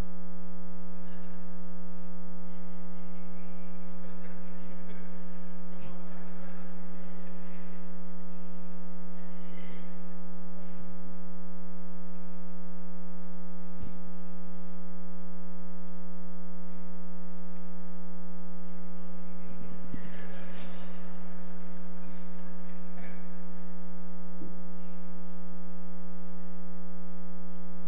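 Loud, steady electrical mains hum with a stack of overtones on the recording, with faint scattered rustles and knocks underneath.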